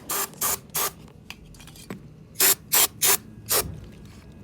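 Aerosol brake cleaner sprayed in short hissing bursts onto a freshly welded differential: three quick bursts, a pause, then four more.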